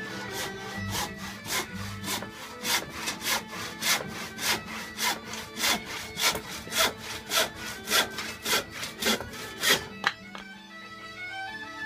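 Rhythmic scraping strokes, about three a second, stopping about ten seconds in, over background folk music with a steady drone.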